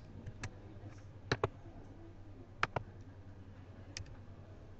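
Faint scattered clicks of a computer keyboard and mouse, about eight single clicks spread unevenly, as a command is pasted and run, over a steady low hum.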